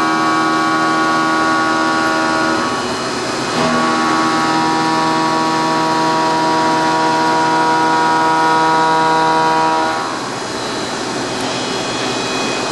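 CNC end mill machining the blades of a metal impeller, making a steady whine of several tones at once. The whine drops out briefly about three seconds in, returns with a click, and stops about ten seconds in, leaving a steady rushing noise.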